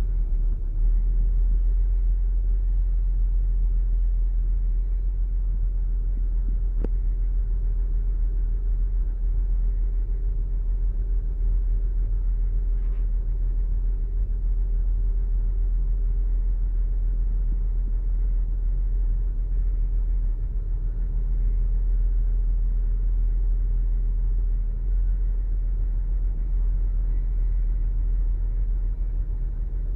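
2008 Saturn Outlook's 3.6-litre V6 engine running steadily after a cold start, a low, even rumble. A single faint click about seven seconds in.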